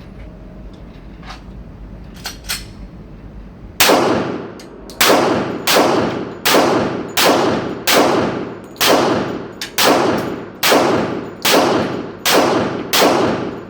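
SIG Sauer M400 AR-15 rifle firing single shots, starting about four seconds in and then going on as a steady string of about a dozen rounds, roughly one every three quarters of a second. Each crack rings on briefly after it.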